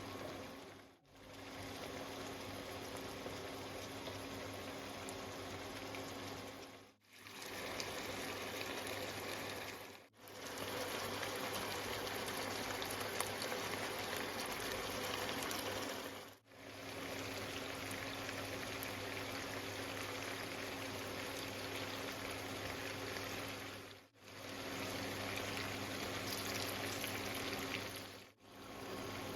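Mutton cooking in a karahi, its liquid bubbling and simmering steadily, with a faint low hum underneath. The sound breaks off briefly and starts again several times.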